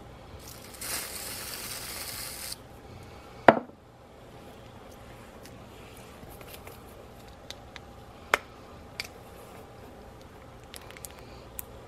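Aerosol whipped cream can hissing as it sprays for about two seconds, then a single sharp knock, followed by a few light clicks and taps.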